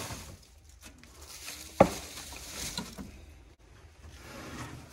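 Rustling and scraping of junk and debris being rummaged through by gloved hands, with one sharp clack about two seconds in.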